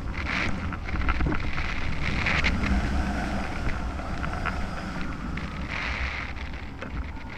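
Airflow rushing over a hang glider in flight, buffeting the frame-mounted camera's microphone unevenly, loudest from about one to three seconds in.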